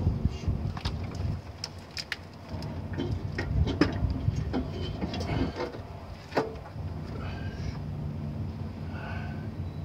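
Light metallic clicks and knocks of parts and tools being handled in a truck's engine bay, over a low steady hum. The clicks stop about two-thirds of the way in, leaving the hum.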